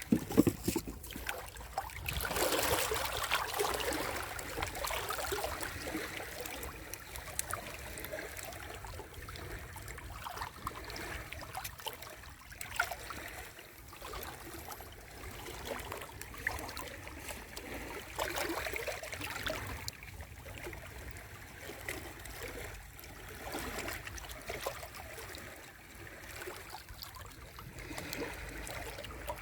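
Sea waves washing onto the shore and drawing back in surges. The biggest swell comes about two seconds in, and a smaller one about two-thirds of the way through.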